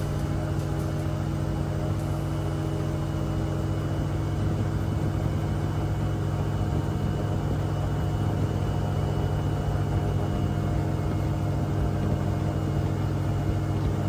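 An engine running steadily at a constant speed, a low, even hum.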